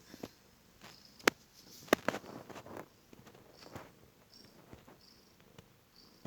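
A heavily pregnant cat snoring: soft, uneven breaths. Two sharp clicks come about a second and two seconds in.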